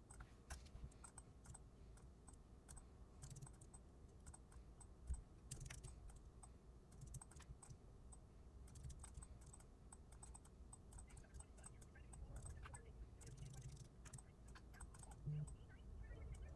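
Faint, irregular clicking of a computer keyboard being typed on, over a low background hum.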